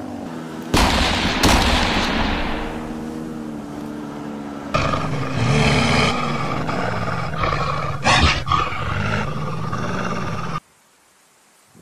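Snowmobile engine running and revving hard, with several sharp cracks: two about a second in and two more at about eight seconds. The sound cuts off suddenly near the end.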